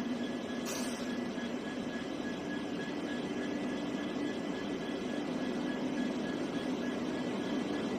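Electric locomotive running slowly toward the listener, a steady hum with a few held tones that slowly grows louder. A brief hiss comes just under a second in.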